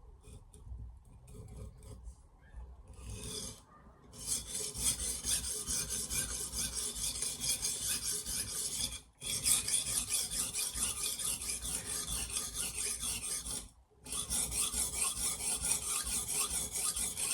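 Steel knife blade stroked rapidly back and forth on the coarse 325-grit side of a Sharpal diamond sharpening plate: a scratchy rasp that starts about four seconds in and comes in three runs with two brief pauses. The first few seconds hold only faint handling sounds.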